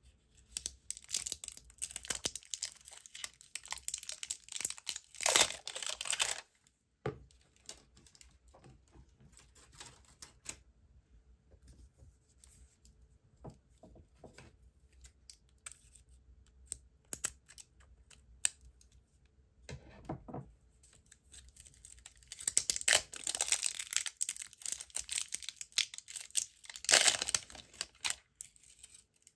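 Clear plastic shrink wrap being peeled and torn off small plastic slime tubs: a crinkly, crackling tearing in two long stretches, one over the first six seconds or so and one over the last eight. Between them come light plastic clicks and taps as the tubs are handled.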